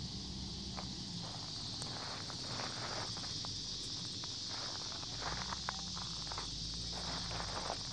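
Footsteps on gravelly ground and through tall dry weeds, irregular crackles and rustles that come thicker in the second half, over a steady high chorus of insects.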